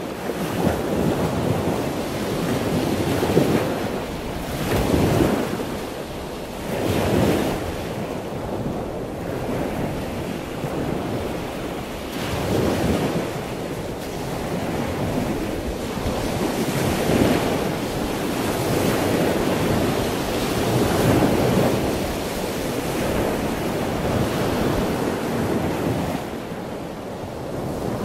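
Ocean surf breaking and washing up a sandy beach, swelling and ebbing in slow surges every few seconds, with a rush of wind.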